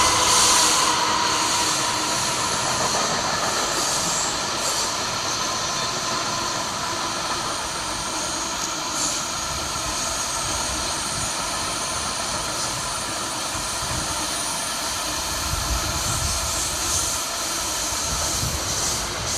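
Freight train rolling past at steady speed: a continuous rumble and hiss of wagon wheels on the rails, with a thin high ringing from the wheels.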